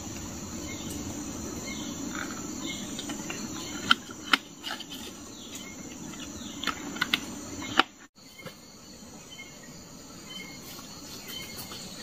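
Forest insects droning steadily with short repeated chirps. A few sharp clicks and rustles cut through as fruit is picked from the leaf litter into a plastic basket.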